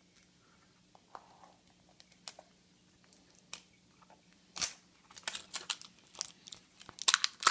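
Crinkling and tearing of a toy blind-pack wrapper as it is opened by hand. A few faint clicks come first, then a thick run of sharp crackles starts about halfway through and grows loudest near the end.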